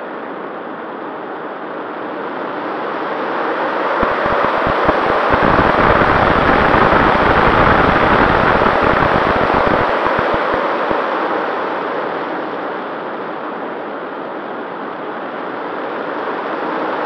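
Air rushing past the onboard camera of an Avionik F5-B electric glider gliding with its motor off and propeller folded. The rush grows louder over several seconds, with a buffeting rumble in the middle, then fades back down.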